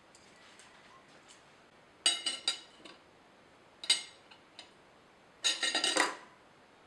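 Metal knife and fork clinking against a china plate: a short run of clinks about two seconds in, a single clink a little before four seconds, and a longer rattle of clinks near the end.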